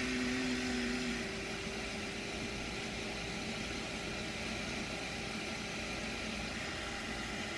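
Small electric fan of a soldering fume extractor running steadily, with a whirring hiss and a steady hum as it draws solder smoke into its filter. A second, lower hum cuts off about a second in.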